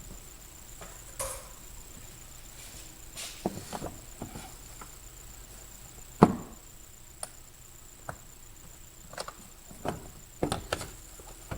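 Scattered knocks and clicks of plastic intake parts being handled and pulled loose in the engine bay, with one sharper knock about six seconds in.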